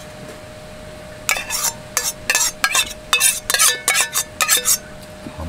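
Metal utensils scraping and clinking against a griddle pan as scrambled eggs are stirred into fried rice: a quick run of sharp scrapes and taps starting about a second in and stopping near the end, over a faint steady hum.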